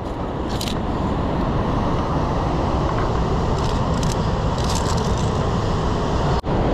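Steady roar of a whitewater river rushing through the gorge below, with a few brief clicks of climbing hardware on the steel rungs and cable.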